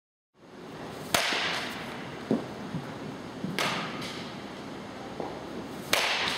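Baseball batting practice in a cage: three sharp cracks of a bat striking a tossed baseball, about two and a half seconds apart, with softer thuds between them.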